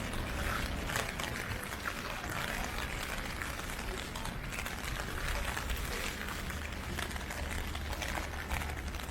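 Heavy typhoon rain falling steadily, a constant hiss with many small drop ticks over a low rumble.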